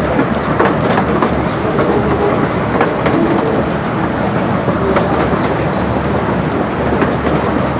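Open-sided carriages of a 15-inch gauge miniature railway running along the track: a steady rumble of wheels on rail with irregular clicks as the wheels pass over rail joints.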